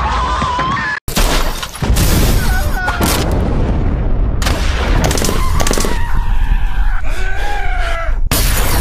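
A loud, fast-cut collage of film soundtrack fragments: heavy booms and bangs like gunfire or explosions, mixed with snatches of voices. Each fragment is cut off abruptly after one to a few seconds, with a brief dropout about a second in.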